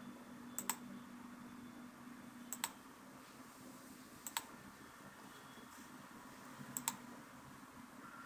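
Computer mouse clicks: four quick double clicks, about two seconds apart, faint against quiet room tone.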